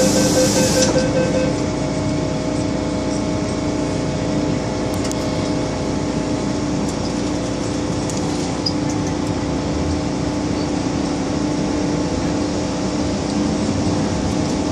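Steady hum inside an MTR M-Train carriage, its air conditioning and on-board equipment running with a few held low tones, while the train stands at a station. A high hiss cuts off about a second in.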